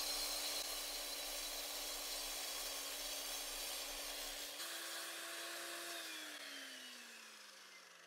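Electric 9-inch concrete cut-off saw with a diamond blade cutting dry through a red clay brick: a steady motor hum under a grinding hiss. A little past halfway the grinding drops away and the motor runs slightly higher, then it winds down with a steadily falling pitch.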